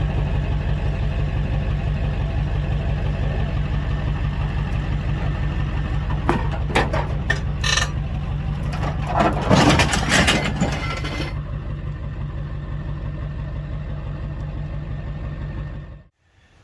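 An engine idling with a steady low pulse. A louder, rougher stretch comes in the middle, and the sound stops abruptly near the end.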